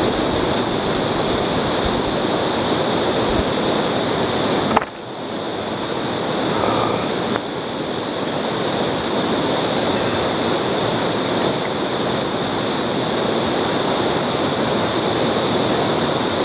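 River water rushing steadily, with a sudden brief drop in loudness about five seconds in.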